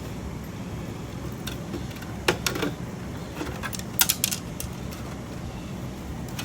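Sharp clicks and light clatter from small plastic and metal speaker parts being handled during disassembly, one a little past two seconds in and a quick cluster around four seconds, over a steady low hum.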